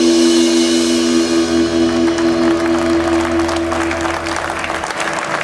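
A live band's final chord held and ringing out with a cymbal wash, dying away over the first few seconds, while audience applause builds up from about two seconds in.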